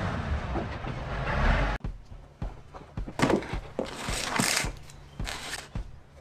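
Excavator engine running with a steady low rumble, cut off abruptly after about two seconds. Then a cardboard box handled over clay roof tiles: scattered knocks and a few short scraping, rustling sounds.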